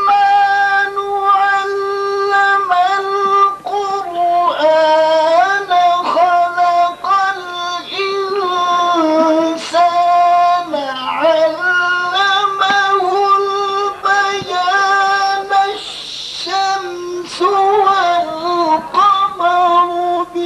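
A man reciting the Quran in the melodic tajweed style, a high voice holding long, ornamented notes that glide between pitches, with short pauses for breath. A steady low hum runs underneath.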